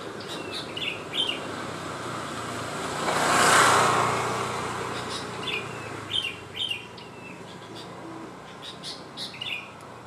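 Sooty-headed bulbul singing short chirped phrases in a few separate bursts: near the start, past the middle, and near the end. A broad rushing noise swells and fades about three to four seconds in, over a steady low background hum.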